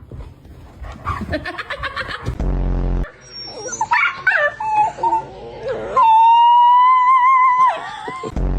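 Dachshund whining and yipping with wavering pitch, then giving one long howl of about two seconds starting about six seconds in.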